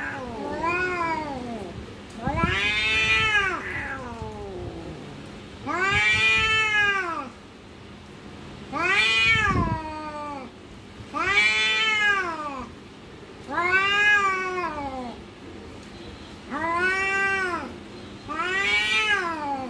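Domestic cat caterwauling at a rival cat in a standoff, a threat display before a fight. About eight long, drawn-out yowls, each rising then falling in pitch, come one every two to three seconds.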